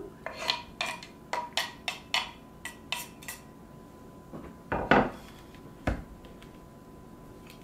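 A metal utensil scraping and tapping chopped boiled egg off a wooden cutting board into a mixing bowl, a quick run of clicks and scrapes. About five and six seconds in come two dull knocks, the first the loudest, as the wooden board is set down on the counter.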